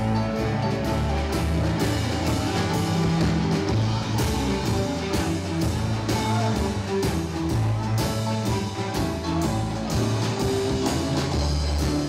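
Live blues band playing: electric guitar and keyboard over a drum kit, with a steady beat.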